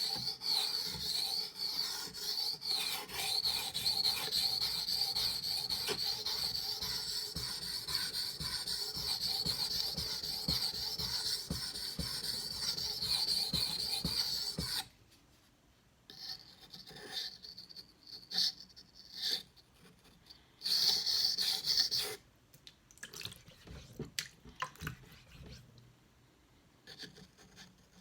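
Steel knife blade being stroked back and forth on a wet 2,000-grit waterstone, a continuous rasping scrape. About fifteen seconds in the steady strokes stop and only short, scattered strokes follow.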